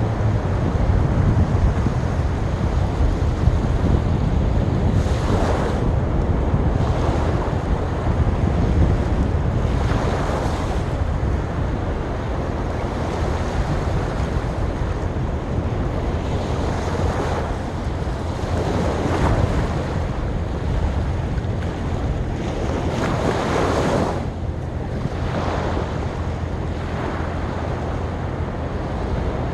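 Sea waves breaking and washing up a beach: a constant low rumble of surf with a fresh hissing surge every few seconds as each wave comes in.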